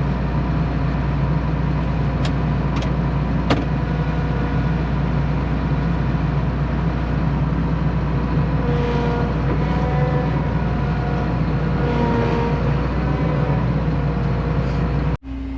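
Combine harvester engine running steadily, heard from inside the cab, with a few light clicks in the first few seconds.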